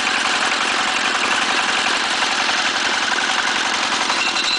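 Core drilling rig running steadily, its engine and belt drive turning at an even pace with a fast, regular beat.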